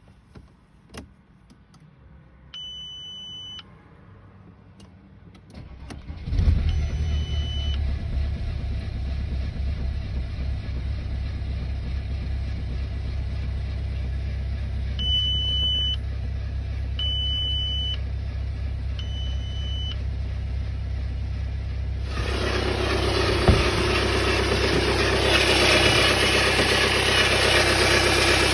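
Audi A6 2.0 TDI four-cylinder turbodiesel cold-started and settling into a steady idle. Dashboard warning chimes beep several times, which the owner ties to low oil pressure. From a few seconds before the end a louder hiss-like noise is added over the idle, and the owner reports a squeaky noise at cold start.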